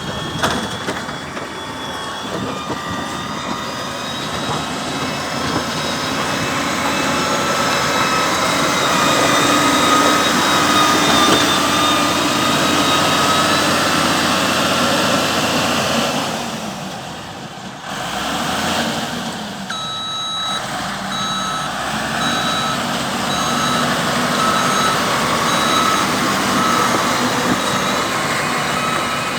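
Heavy road vehicle's engine running steadily. About two-thirds of the way in, a reversing alarm starts beeping, about once a second.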